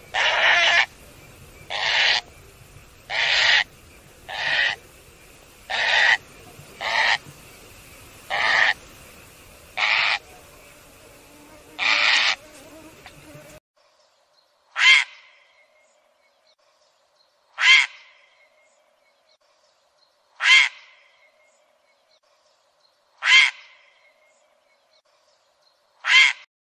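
Cranes calling: a run of about nine loud calls over a steady background hiss, then, after an abrupt change to a cleaner recording, five single calls spaced about three seconds apart.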